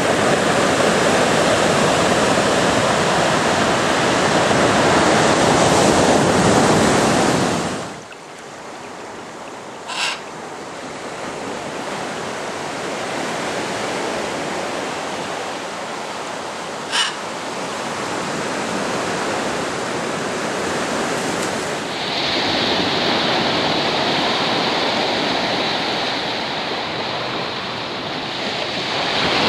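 Ocean surf breaking and washing up a sand beach in an even rush, which cuts off about eight seconds in. A quieter steady hiss follows, broken twice by a short sharp sound.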